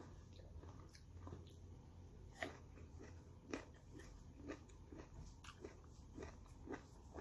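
A person chewing slices of crisp persimmon: faint, irregular crunches and mouth clicks, with a couple of louder crunches near the middle.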